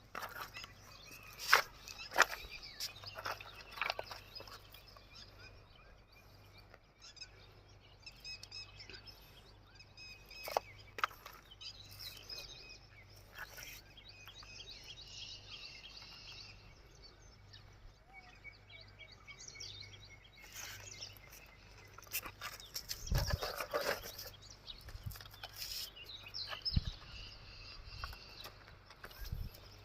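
Outdoor ambience with birds chirping here and there, scattered short knocks, and a faint low steady hum.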